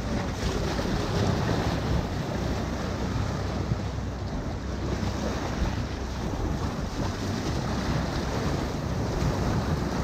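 Muddy river water rushing and splashing past an inflatable raft's pontoons as it runs small rapids, with wind buffeting the microphone.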